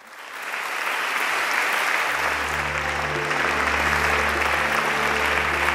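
Audience applauding, a steady dense clapping that swells up at the start. About two seconds in, music comes in underneath with low, held bass notes.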